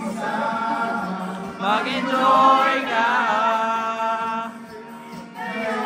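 Voices singing long, held notes over music, quieter for a moment about four and a half seconds in.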